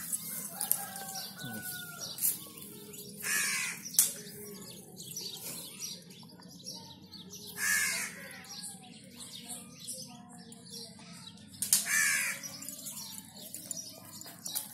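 Crows cawing about four times, a few seconds apart, with small birds chirping faintly between the caws.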